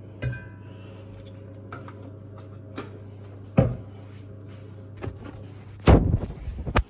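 Kitchen clatter over a steady low hum: a knock as something is set down, another a few seconds later, then a louder run of bumps and rubbing near the end as the recording phone is picked up and handled.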